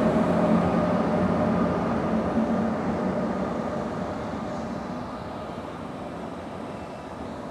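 HŽ Cargo 'Đuran' diesel locomotive hauling a train of Eas open freight wagons, its engine hum and the rolling of the wagons fading steadily as it moves away.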